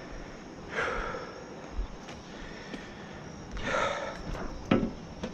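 A man breathing out hard twice, winded, with a short knock near the end.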